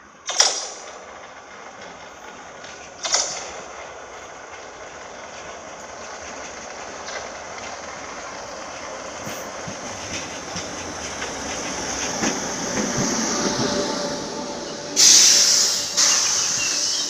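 Merseyrail electric train pulling into the station, its running and brake noise growing steadily louder, with two sharp clanks in the first few seconds. Near the end comes a sudden loud burst of air hiss, then a second surge about a second later, as the train comes to a stand.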